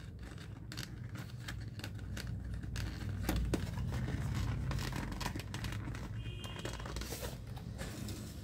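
Cardboard packaging being opened and handled by hand: flaps rustling and scraping, with many small irregular clicks and scuffs as the boxes and glasses case are pulled out, over a steady low hum.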